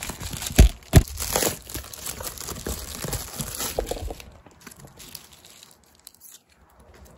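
Plastic mailer bag and packaging crinkling as they are handled and opened, with two loud thumps about half a second and a second in. The crinkling is dense for the first few seconds, then turns to quieter, sparser plastic rustling.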